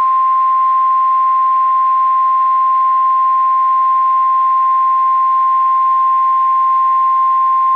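NOAA Weather Radio 1050 Hz warning alarm tone: a loud, steady, unbroken single-pitch beep that signals a warning message is about to be read.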